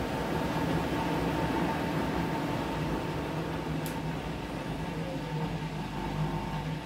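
Whirlpool FreshCare+ front-loading washing machine running mid-cycle: a steady motor hum with a faint whine, and a brief tick about four seconds in.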